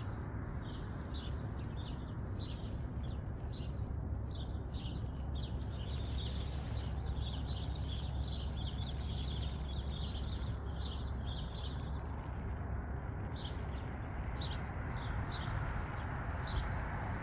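Small birds chirping in short, high chirps, several a second at times and busiest in the middle, over a steady low background rumble.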